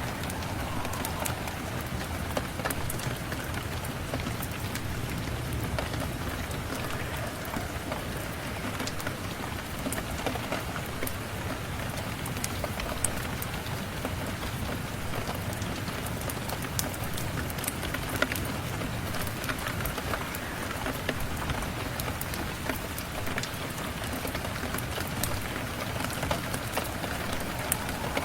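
Steady rain falling, an even wash of sound, with scattered sharp ticks and crackles throughout.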